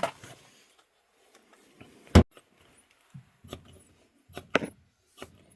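Several sharp knocks and clicks from parts and tools being handled, the loudest about two seconds in.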